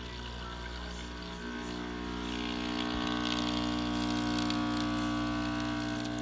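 Vibratory pump of a DeLonghi Dedica EC680 espresso machine, newly replaced, humming steadily while pulling a test shot; about two seconds in it grows louder and a hiss joins it.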